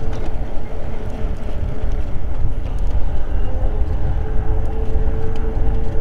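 Eahora Juliet e-bike riding along a paved trail: loud wind rumble on the microphone, with a steady whine from the electric hub motor running underneath it.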